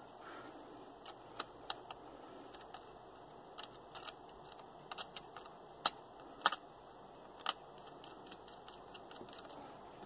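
Small scattered clicks and taps of a Phillips screwdriver and the memory-compartment cover on the underside of a Dell Latitude D630 laptop, as the cover is put back and its screw driven in.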